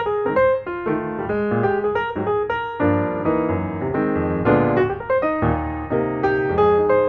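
Background piano music playing a melody of quick successive notes, with fuller chords from about the middle on.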